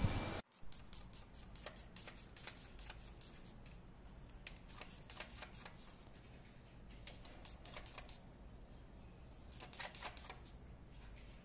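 A louder sound cuts off about half a second in. After it come faint, irregular light clicks and taps, bunched near the middle and again near the end.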